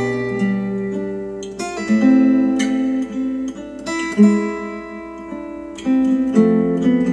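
Acoustic guitar music, plucked and strummed chords ringing and changing every second or so, played back through KEF R3 bookshelf speakers.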